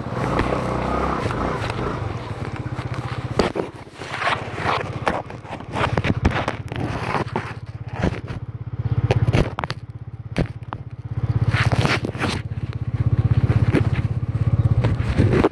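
Small motor scooter engine running at idle with a fast low putter that swells several times and settles back. Over it come scrapes and clicks from the camera being handled against the scooter.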